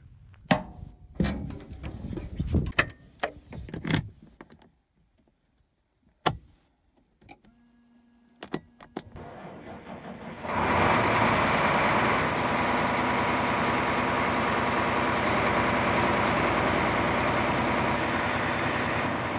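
A series of knocks and clicks, then a short steady tone. About ten seconds in, the Claas Lexion 750 combine's diesel engine starts and runs steadily and loud.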